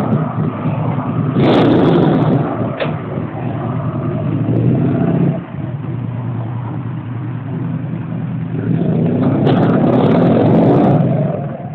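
Buell Lightning XB12R's air-cooled V-twin running, with a sharp throttle blip about a second and a half in. It revs up again as the bike pulls away, and the sound drops off at the very end.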